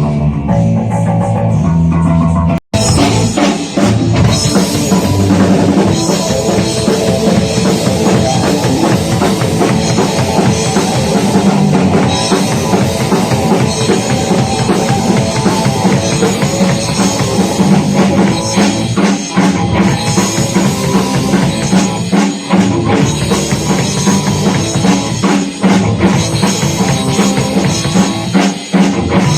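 Punk rock band playing live through an amplified PA during a sound check. Guitar and bass ring out at first. After a sudden short break in the sound about three seconds in, the full band with a pounding drum kit plays on.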